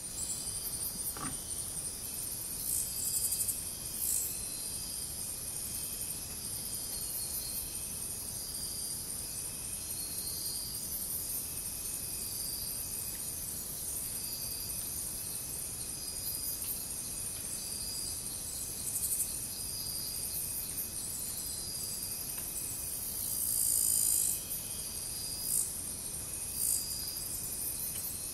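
Amazon rainforest insect chorus: a steady, high-pitched shrill with pulsing swells that grow louder briefly a few times, over a short note repeated about every two seconds.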